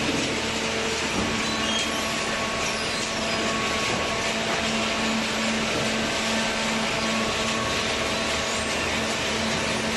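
Hydraulic cardboard baler running: a steady mechanical hum from its motor and pump, with an even whirring noise that does not change.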